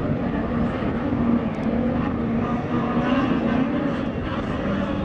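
Racing tunnel-hull outboard boat engines running flat out as the boats pass, a continuous drone that wavers up and down in pitch, over steady hiss.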